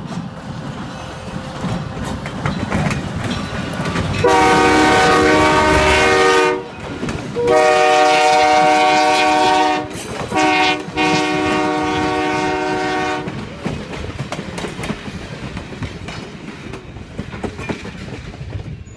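Diesel locomotive air horn sounding a chord in four blasts, long, long, short, long: the standard signal for a grade crossing. Underneath runs the rumble and wheel clatter of the passing passenger train.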